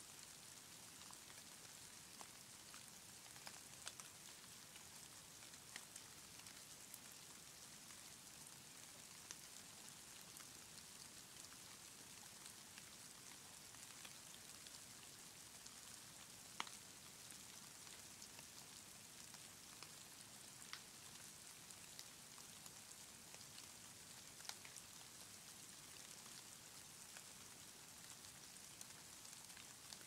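Falling wet snow: a faint, steady hiss with light, irregular ticks of flakes landing, one a little louder just past halfway.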